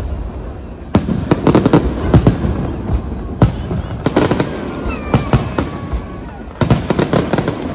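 Fireworks display: aerial shells bursting overhead in rapid volleys of bangs and crackles, separated by short lulls.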